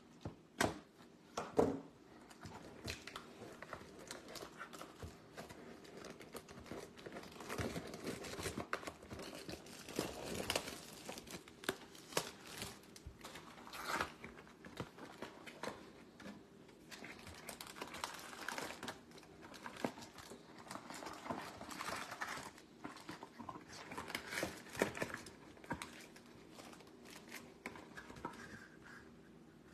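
Crinkling and tearing of trading-card pack wrappers and packaging being handled, with many sharp clicks and taps scattered through it.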